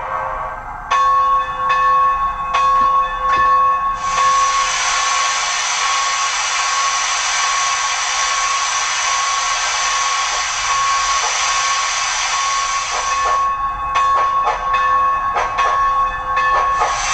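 Sound decoder of a model articulated steam locomotive playing recorded steam sounds through its small speaker. There are a few exhaust chuffs, then a long, loud hiss of steam from about four seconds in to about thirteen, then more chuffs. A steady whine runs underneath throughout.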